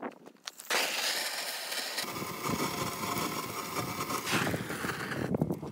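A handheld fire-starting gun blowing steadily into the kindling in a wood stove's firebox, a loud rushing hiss that starts under a second in, deepens from about two seconds in, and cuts off suddenly near the end.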